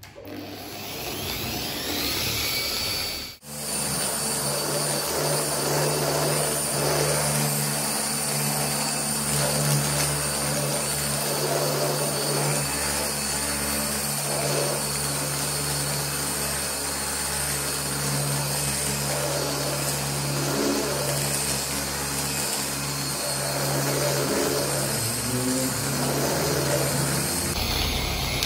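Dual-action orbital polisher running steadily with a finishing pad on car paint, spreading a paint-protection wax. It builds up at the start, cuts out for a moment about three seconds in, and winds down near the end.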